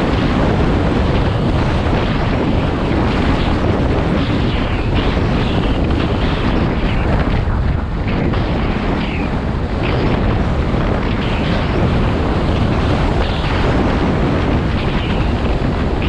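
Loud, steady wind noise buffeting the microphone of a camera on a moving dirt bike, with the Honda CRF250 Rally's engine running beneath it.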